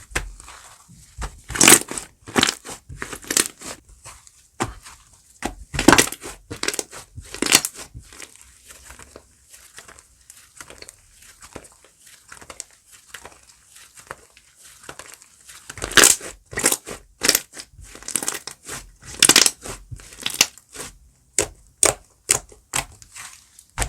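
Slime being squeezed, pressed and poked by hand, giving irregular crackling pops and squishes. There is a louder cluster early on, a quieter stretch in the middle, and a dense run of pops from about two-thirds of the way in.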